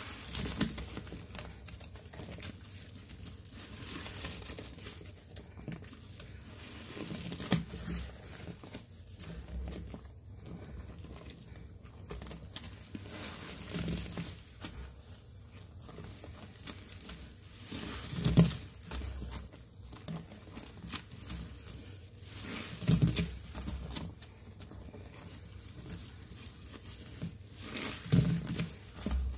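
Rubber-gloved hands squeezing and kneading a sponge soaked in thick foamy cleaning paste: wet squelching with crackling foam, louder squishes every few seconds.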